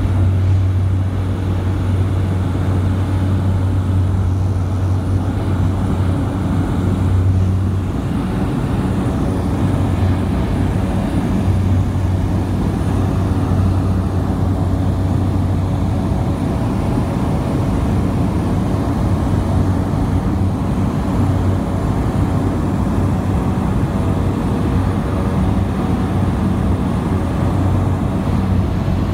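Light aircraft's propeller engine droning steadily in flight, heard from inside the cabin: a loud, even drone with a strong low hum, which eases for a few seconds about eight seconds in.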